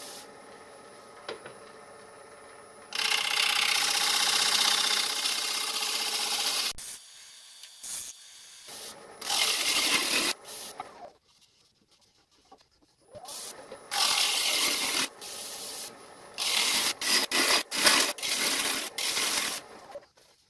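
Bowl gouge shearing very fine shavings off a green fruit-wood bowl spinning on a lathe, in a light finishing cut. It makes a hissing shave in several passes: the longest lasts about four seconds starting around three seconds in, then shorter passes follow with brief pauses between.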